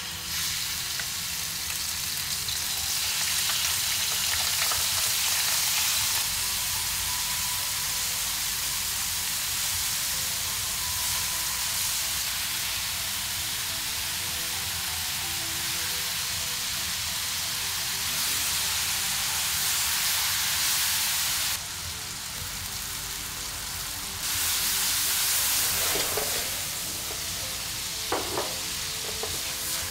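Thin slices of fatty beef sizzling in hot oil in a wok, turned and stirred with metal tongs. There are a few sharp clacks of the tongs against the pan near the end.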